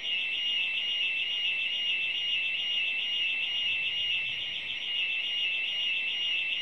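External burglar-alarm siren sounding a continuous high-pitched electronic tone with a fast warble, triggered remotely as a test.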